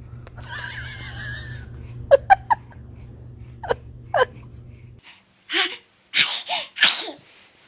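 A baby's short, sharp vocal bursts: a longer breathy sound, then several quick bursts with pauses between. A steady low hum underneath stops about five seconds in, and a run of four louder breathy bursts follows.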